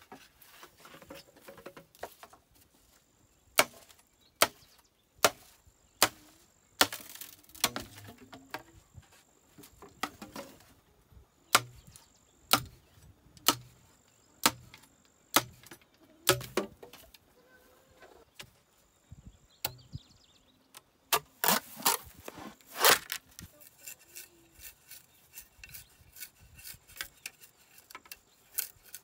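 A knife chopping green bamboo: sharp knocks about one a second, with several louder strikes close together about three quarters of the way through.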